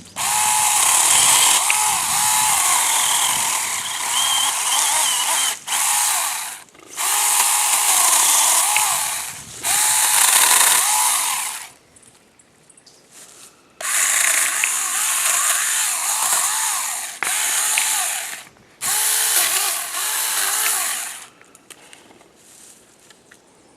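Saker 4-inch cordless mini chainsaw running in a series of trigger bursts, its electric motor whine bending in pitch as the chain bites into limbs. There are several short breaks and a longer pause about halfway through.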